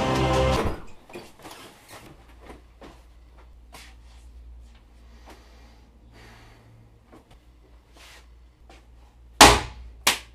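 Music cuts off, leaving a quiet room with a low hum and scattered faint clicks and small knocks. Near the end comes a sharp, loud knock on wood, followed by a few quicker knocks.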